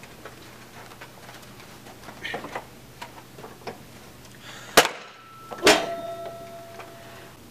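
Two sharp knocks about a second apart, the second leaving a short ringing tone, over a low steady hum.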